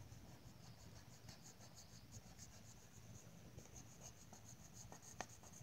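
Felt-tip marker scratching faintly on paper in quick repeated colouring strokes, several a second, with one sharper tick near the end.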